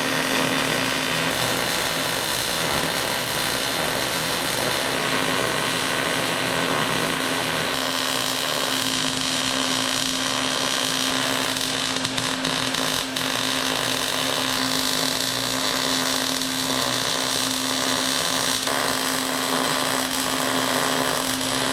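Angle grinder running steadily on metal, a continuous whine with a constant pitch.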